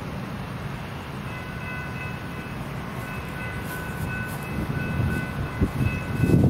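A train approaching, its low rumble growing louder toward the end. A faint horn chord of several notes sounds on and off from about a second in.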